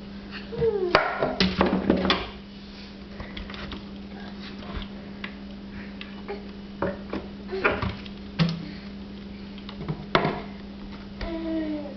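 Scattered knocks and clatter from a wooden toy kitchen's cabinet door and toys being handled. A few short, squeaky, downward-gliding vocal sounds come near the start and near the end, over a steady low hum.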